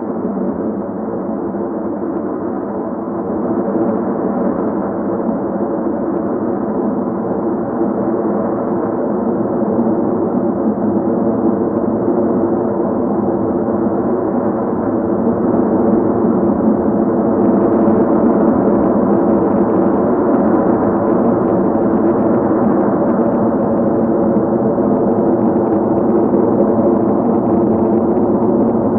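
Sustained ambient drone of many steady tones layered together, slowly growing louder, with a brighter shimmer joining about halfway through.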